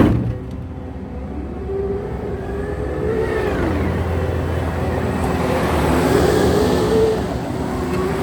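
Takeuchi TL12V2 tracked skid steer working under load, its diesel engine rising and falling in pitch as it revs up and settles back several times. There is a thump at the very start.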